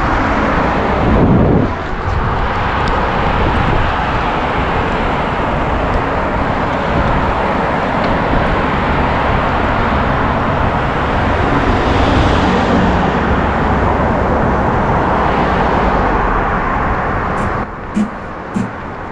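Steady rush of wind on the microphone of a camera carried on a moving bicycle, mixed with passing car traffic on the road. The noise drops away sharply near the end.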